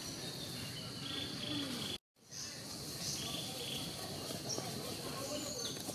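Outdoor forest ambience: a steady high insect drone with short bird chirps over it. The sound cuts out completely for a moment about two seconds in.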